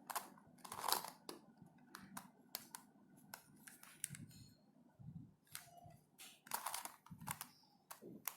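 Plastic Lanlan corner-cut helicopter cube being twisted through a sequence of moves, its pieces giving sharp clicks and clacks as they snap through turns, with a few soft handling bumps.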